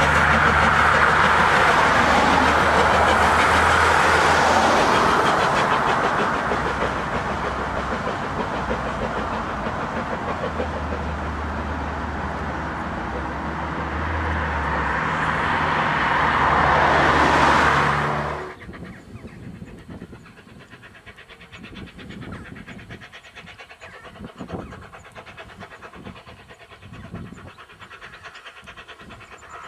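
Steam train working over a road bridge, its sound mixed with road traffic passing close beneath, swelling again just before the sound drops off abruptly about 18 seconds in. After that only a much quieter background remains, with the train far off.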